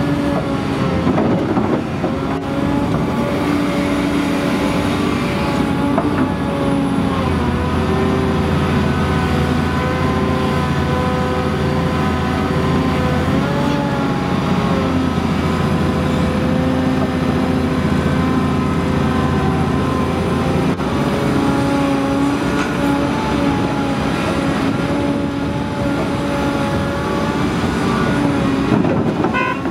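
Komatsu PC800LC hydraulic excavator's six-cylinder diesel engine working under load through a dig-and-load cycle, its pitch rising and falling slightly as the hydraulics pull. A heavier, deeper drone runs through the middle stretch, while the bucket digs into the pile.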